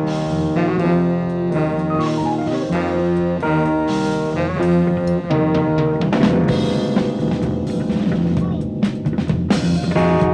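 Jazz-rock band playing an instrumental live, with saxophone over drum kit and bass. Short repeated phrases give way to a denser, fuller passage about six seconds in.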